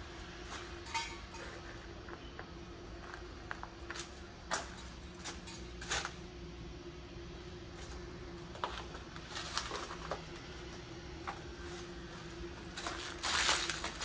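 A steady hum with scattered light clicks and knocks, and a louder rustling burst near the end.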